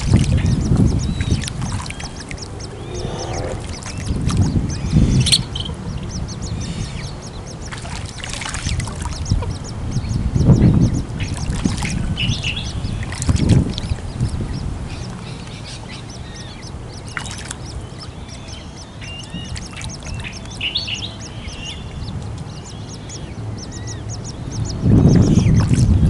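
Waterbirds calling off and on at a pond, over a low rumble that swells and fades and is loudest at the start and again near the end.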